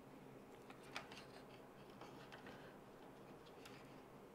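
Near silence, with faint ticks and a light click about a second in as small LED lights and their wires are handled.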